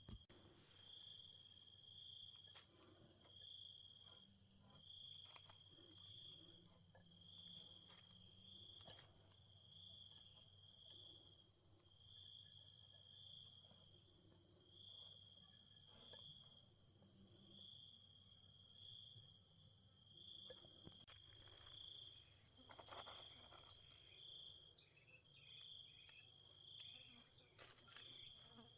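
Faint insects chirping: a steady high trill with a higher chirp repeating a little more than once a second. A few faint clicks, and one sharper click near the end.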